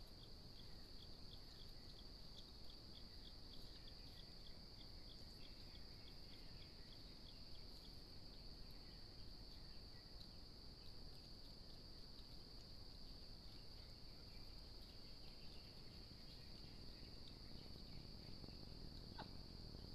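Faint, steady, high-pitched insect drone, like crickets or cicadas, unbroken throughout. Over roughly the first eight seconds a second insect-like ticking repeats about twice a second.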